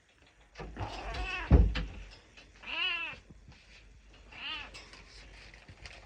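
Domestic cat meowing three times, begging for a Churu treat, with each call rising and falling in pitch. A loud thump comes during the first meow.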